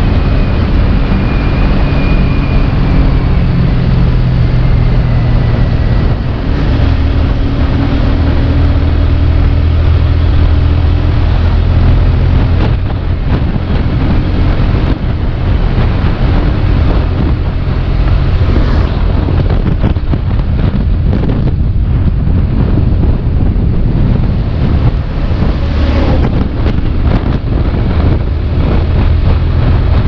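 Motorcycle engine running under way, its hum shifting in pitch a few times, with heavy wind rushing over the microphone.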